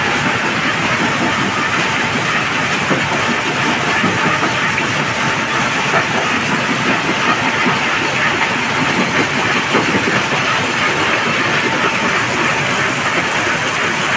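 Stone crusher plant running: a steady, dense mechanical rattle and rumble of the crushing machinery and the conveyor belts carrying crushed stone.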